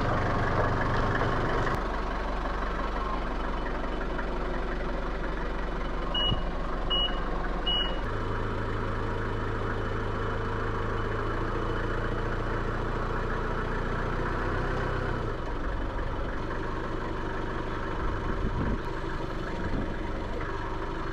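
Forklift engine running steadily as the machine is manoeuvred, its note shifting a couple of times, with three short reversing-alarm beeps about six to eight seconds in.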